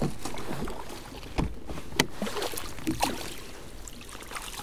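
Scattered knocks and clicks on a kayak over light water noise, while a freshly landed pike is handled aboard.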